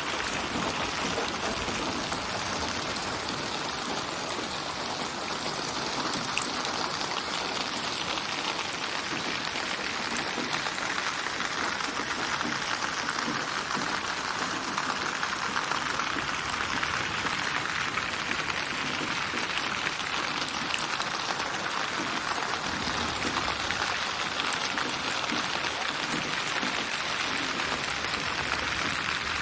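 Steady rain falling: an even, unbroken wash of raindrops with no change in loudness.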